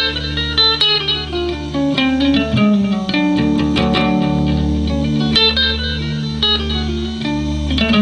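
Electric guitar played: a quick picked single-note melody over sustained low notes.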